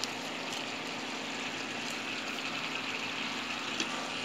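Steady cooking noise at the stove: a low hum under an even hiss, with a few faint ticks.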